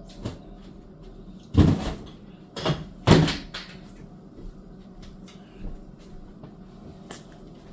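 Three sharp knocks, the first about one and a half seconds in and the last two close together about three seconds in, then only faint room noise.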